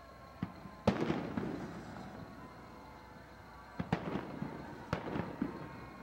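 Fireworks going off: a small bang, then the loudest bang about a second in, followed by a second or so of crackling, then more bangs with crackle after them near four and five seconds in.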